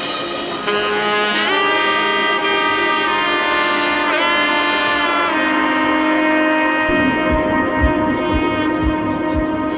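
Background music led by a saxophone-like melody of long held notes, with a soft low beat coming in about seven seconds in.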